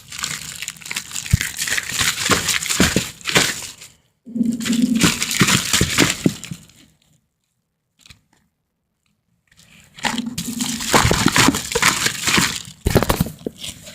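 Slime being worked in and out of a plastic container: crinkly, crackling handling noise full of small pops and clicks. It comes in stretches, with a dead-silent break about halfway.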